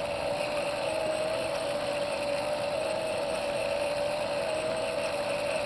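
Electric motors of a motorized fire-tornado rig running with a steady hum, over an even rushing noise.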